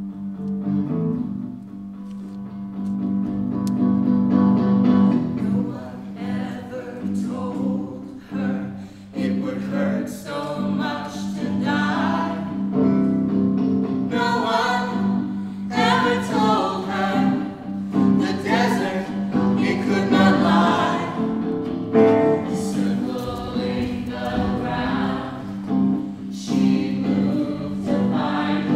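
Music: several voices singing together in a choral style over a steady low drone.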